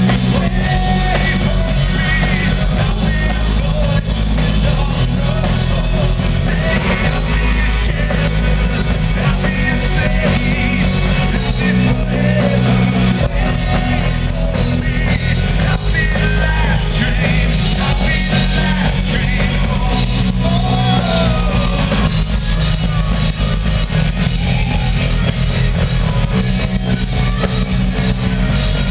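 Live rock band playing loud, with electric guitars, electric bass and drums, and a man singing over them at times.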